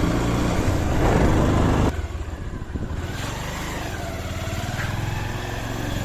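Motorcycle engine running steadily while riding, with heavy wind rush on the microphone that cuts off abruptly about two seconds in.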